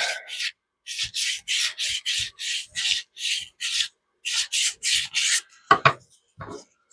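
PVC pipe being hand-sanded in quick back-and-forth strokes, about three a second, roughing up its surface for a glued joint. A brief pause comes partway through, and two short knocks sound near the end.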